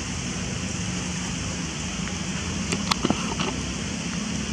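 Steady outdoor background noise, with a quick run of sharp clicks about three seconds in.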